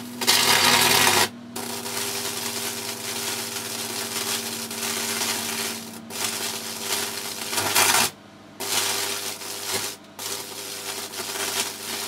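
High-voltage arc from two microwave oven transformers at about 4200 volts crackling through a wet scouring sponge, over a steady transformer hum. The crackle is loudest for about the first second and cuts out briefly a few times, longest for about half a second past the middle.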